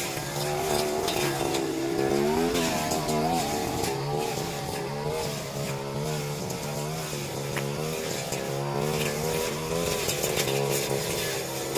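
Petrol brush cutter engine running under load while cutting, its pitch rising and falling as the throttle and cutting load change, with a few sharp clicks.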